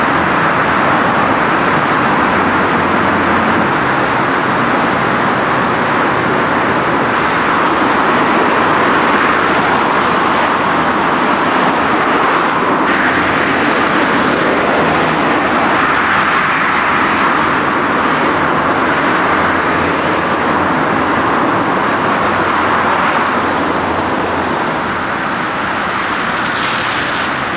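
Steady running noise heard from aboard a moving tram, a constant rushing hum that eases slightly near the end.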